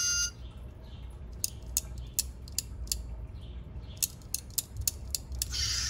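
About ten sharp, irregular plastic clicks from a Zhu Zhu Pet's code-reader switches being pressed by hand to test newly resoldered code-reader wires, with a short hiss near the end.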